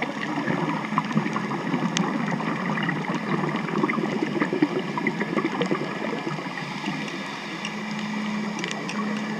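Boat motor and propeller noise heard underwater: a steady drone with a low hum that comes through clearest near the end, over a bed of scattered sharp clicks.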